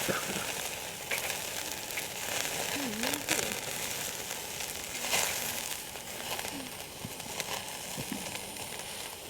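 Meat sizzling as it cooks on a camp barbecue, a steady hiss with scattered crackling pops.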